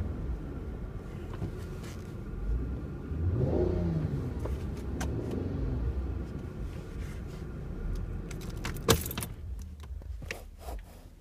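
Inside a Chrysler 300 on the move: a steady low road and engine rumble, with a tone that rises and falls around four seconds in. A sharp knock comes near the end, followed by a few lighter clicks.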